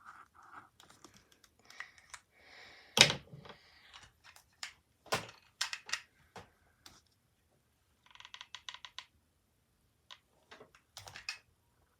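Light clicks and taps of small wooden Scrabble tiles being handled and pressed onto a cardboard box, with one sharper knock about three seconds in and a quick run of clicks a little past the middle.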